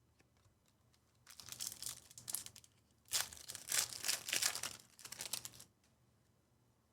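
Plastic wrapper of a trading card pack crinkling and tearing as it is ripped open and handled: a short spell of rustling starting about a second in, a brief pause, then a longer spell.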